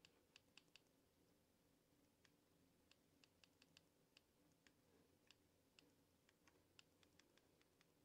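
Faint, irregular clicks of a Flipper Zero's directional buttons pressed in short runs, stepping the on-screen cut depths to match a key during decoding.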